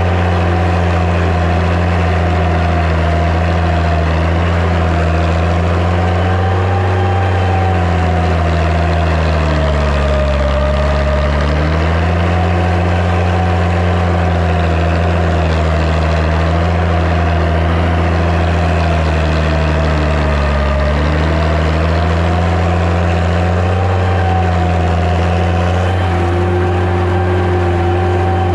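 Massey Ferguson 95X tractor's six-cylinder diesel engine running steadily under load while pulling a subsoiler. Its pitch sags twice, about ten and twenty seconds in, as the engine lugs down and then picks back up.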